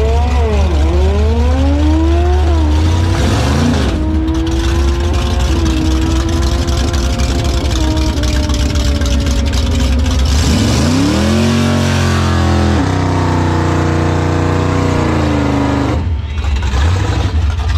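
Big-tire Chevy Nova SS drag car's engine revving hard through a burnout on Hoosier slicks. Its pitch swings up and down for the first few seconds, then it holds high revs; it climbs again about ten seconds in and drops off near the end.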